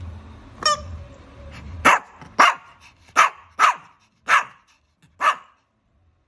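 Shih Tzu giving a brief high-pitched yip, then six short sharp sneezes in quick succession over about three and a half seconds: the excited play sneezing of a happy dog.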